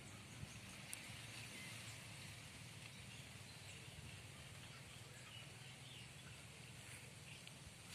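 Near silence: faint outdoor field ambience, a low steady hiss with a few faint high chirps and a couple of light clicks about a second in.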